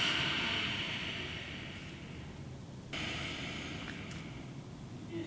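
A man taking slow, deep breaths for a stethoscope check of his chest. A long, airy breath fades away over about three seconds, then a second one starts abruptly about three seconds in and fades.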